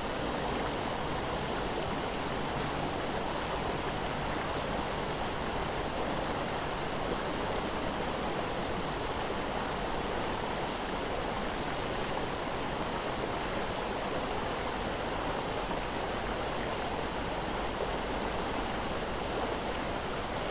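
River water rushing steadily past, a constant even hiss of flowing current.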